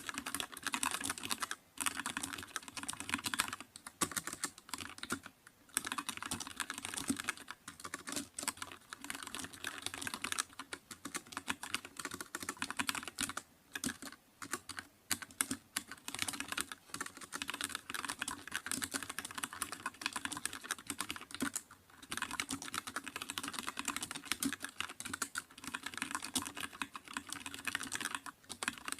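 Computer keyboard being typed on steadily and fast, a dense run of key clicks with a few brief pauses.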